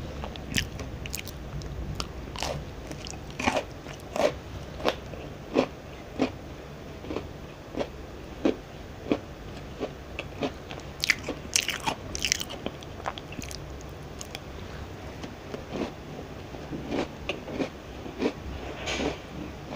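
Close-miked chewing of crisp cookies: sharp crunches at an irregular pace, about one a second, with a louder run of bites about halfway through.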